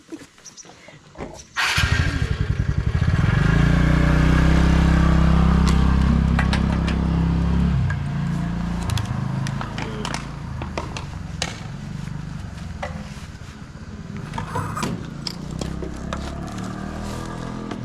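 Petrol pump dispenser motor switching on about two seconds in and running with a steady hum as fuel is pumped into a motorcycle's tank. It is loudest for the first few seconds, then runs on more quietly with scattered clicks.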